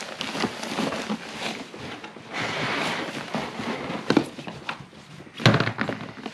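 Hard plastic storage-tote lid being taken off and set down on another tote with a sharp knock about five and a half seconds in. Before it come rustling of packaged items being handled inside the bins and a lighter knock.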